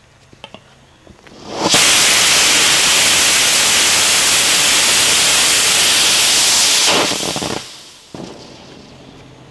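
Experimental 'swamp gas 2.0' solid rocket motor with a moon burner grain in a 54 mm Aerotech 54-1706 case, static-fired: a few small igniter pops, then it comes up to full thrust about a second and a half in and burns with a loud, steady rushing hiss for about five seconds. Near the end it tails off quickly to a faint hiss as the burn ends.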